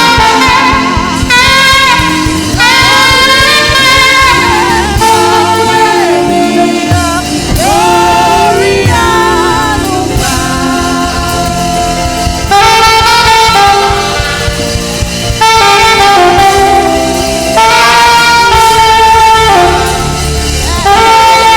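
Saxophone playing a sustained, gliding gospel melody with vibrato over backing music.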